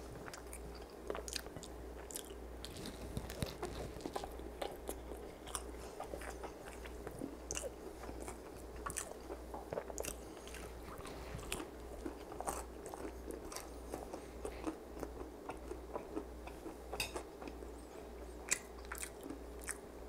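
Close-miked chewing of a flaky Jamaican meat patty doused in hot sauce, with many small crisp crackles and wet mouth clicks throughout.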